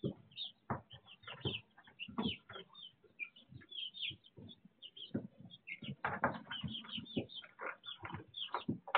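A flock of young chicks peeping, many short high calls overlapping with no break, with short soft rustles and scuffs from the birds moving and scratching in wood-shavings litter.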